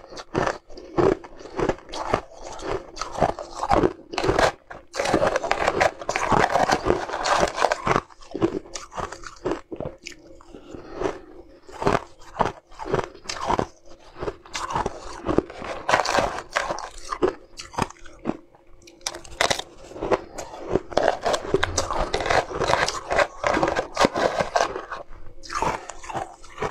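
Crushed ice being crunched and chewed right at the microphone: a dense, irregular run of crisp cracks and crackles, busiest twice in the middle stretch.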